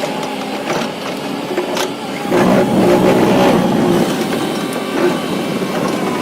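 A toy truck's small motor and gears whirring, growing louder about two seconds in, with a few clicks.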